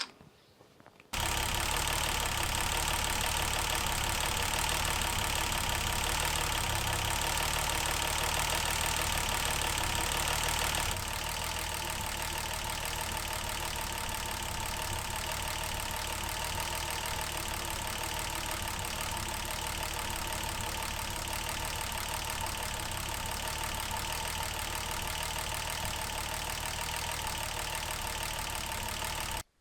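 An engine running steadily with a mechanical clatter. It cuts in abruptly about a second in, gets a little quieter about eleven seconds in, and stops suddenly just before the end.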